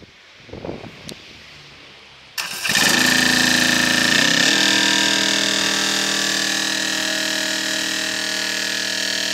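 Small engine of an Unimec LT 750 hydraulic reversing concrete mixer starting suddenly a little over two seconds in. It runs fast at first, drops to a lower steady speed about four seconds in, and keeps running evenly with a steady high whine over it.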